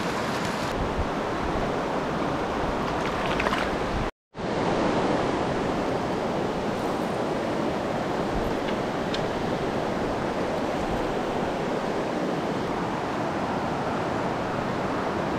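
Steady rush of a mountain trout stream's current running over rocks, broken by a brief dropout about four seconds in.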